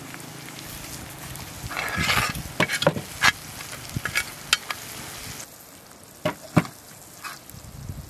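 Chopped onion, garlic and bell peppers sizzling in hot oil in a large black metal pan, with a slotted metal spoon scraping and clicking against the pan as the vegetables are stirred. The sizzle drops off about five and a half seconds in.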